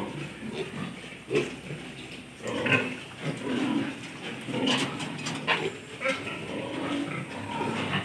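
A group of piglets grunting in short, irregular calls, the loudest about two and three-quarter seconds in.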